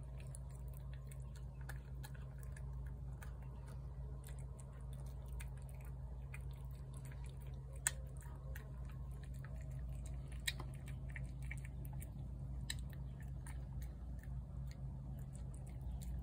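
A cat chewing and smacking on wet cat food: many small irregular wet clicks, with a couple of sharper clicks partway through, over a steady low hum.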